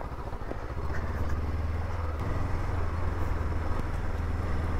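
Honda CL500's parallel-twin engine running with a steady, low engine note at low revs.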